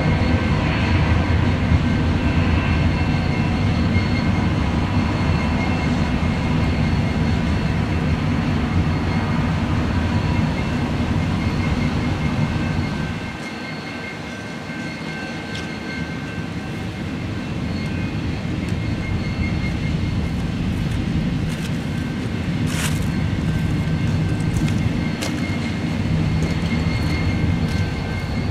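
Double-stack intermodal freight cars rolling past on the rails: a steady rumble of wheels on track, with a few thin ringing tones above it. It eases off for a few seconds about halfway through, then picks up again.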